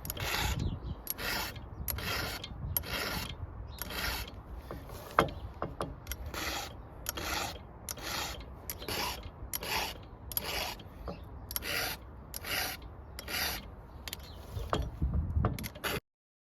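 Round chainsaw file rasping across the cutting teeth of a saw chain in steady, evenly spaced strokes, about one every three-quarters of a second: a few passes on each tooth to bring back the edge. The filing stops abruptly near the end.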